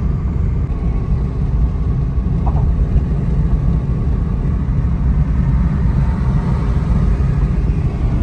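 Car driving along, heard from inside the cabin as a steady low rumble of engine and road noise.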